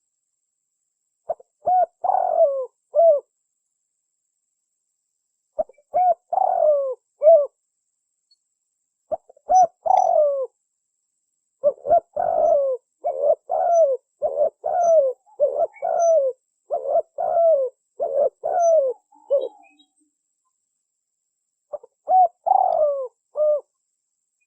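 Spotted dove (tekukur) cooing in short phrases of a few notes separated by pauses of a couple of seconds, with a longer unbroken run of many coos in the middle. It is a lure call meant to draw spotted doves in.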